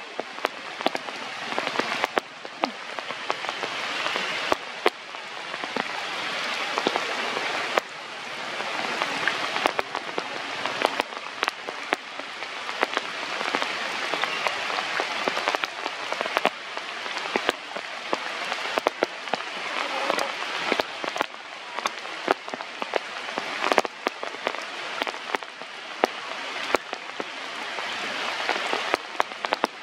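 Rain falling steadily: a dense hiss with many sharp drops striking close by, the hiss swelling and easing every few seconds.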